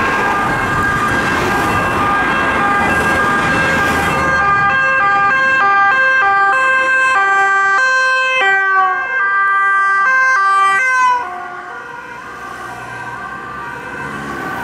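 Two-tone sirens of Dutch police cars on an urgent run, passing with road and engine noise. The alternating tones grow loud about four seconds in, slide lower as the cars go by, and fall away sharply about eleven seconds in.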